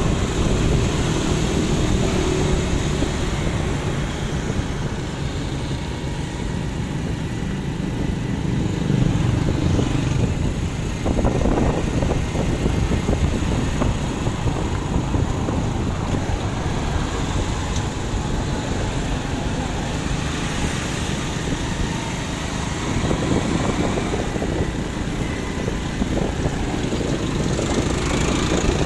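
Vehicle engine and road noise on a city street, a steady rumble that swells a few times as motorcycles and other traffic pass.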